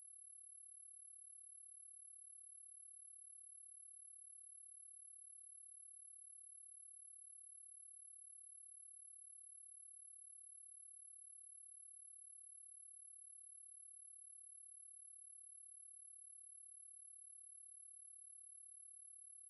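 A pure sine-wave test tone at 11043 Hz, a single steady high-pitched whistle held at constant level, played as a speaker test and speaker-cleaning tone.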